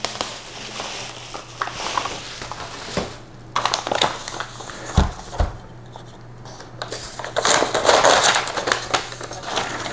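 Bubble wrap crinkling and crackling as it is pulled off a boxed radiator, then two dull knocks about five seconds in as the box is set down on the table. Paper wrapping rustles loudly as it is peeled open near the end.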